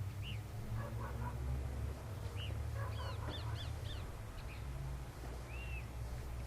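Birds calling: scattered short, arching calls, with a quick run of several about three seconds in, over a steady low rumble.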